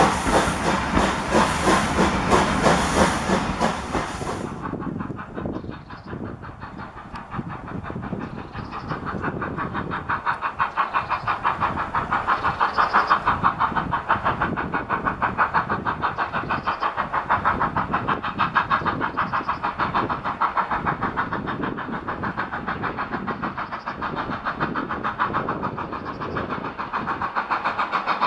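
A loud steam hiss over a train pulling away stops abruptly about four seconds in. Then BR Standard Class 4MT 2-6-0 steam locomotive 76084 approaches, its exhaust beating in a steady, even rhythm that grows louder as it nears.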